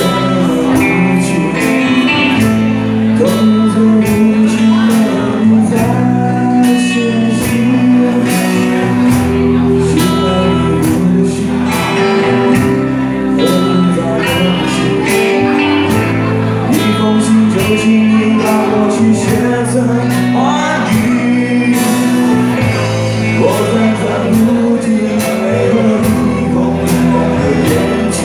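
A live band playing a song with male singing over a steady drum beat and sustained bass, with the sound of a large hall.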